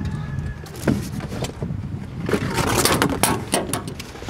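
A metal intercooler pipe with silicone boots being handled on a truck bed: a few sharp knocks, then a stretch of scraping and rustling about two seconds in.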